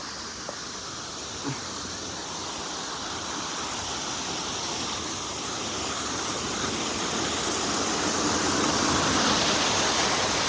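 Waterfall rushing: a steady hiss of falling water that grows gradually louder.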